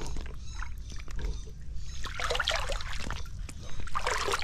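Shallow creek water trickling and sloshing as hands work in the water at the foot of a mud bank, with a few small knocks.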